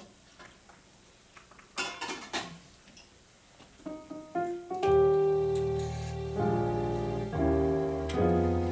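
Metal communion trays clinking as they are lifted and handed round. About four seconds in, a keyboard starts softly with a few single notes, then plays held chords that change every second or so and become the loudest sound.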